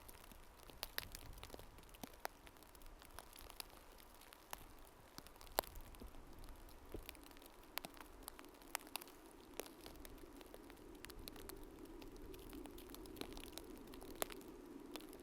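Campfire crackling: sharp, irregular pops and snaps from burning wood, with a low rushing noise that grows louder over the second half as the fire takes hold.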